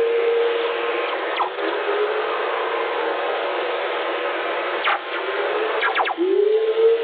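VLF radio recording of Earth's proton whistlers played as audio: low tones that glide quickly upward and then settle into a steady hum, over a bed of radio static hiss. Several brief, fast-falling whistles cut through the hiss.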